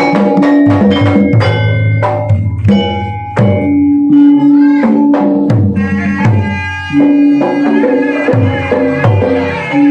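Sundanese gamelan ensemble playing: struck metallophones ring out sustained notes over repeated hand-drum strokes. About six seconds in, a higher sliding melodic line joins in.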